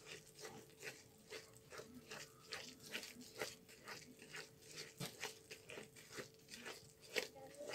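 Spoon beating cake batter by hand in a bowl: faint, regular scraping strokes, about two to three a second.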